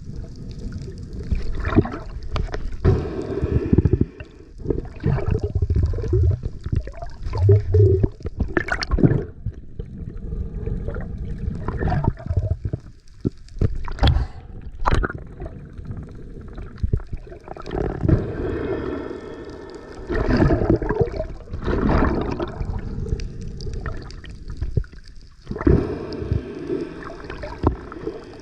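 Seawater gurgling and sloshing against a diver's camera, in irregular surges.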